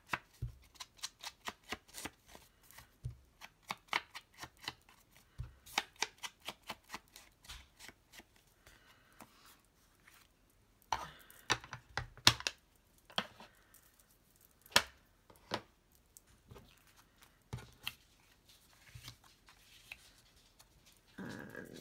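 Quick repeated taps of a foam ink blending tool dabbing distress ink onto the edges of a paper frame, several a second for the first seven seconds or so. After a short pause the taps come again more sparsely, and there is a brief rub of paper near the end.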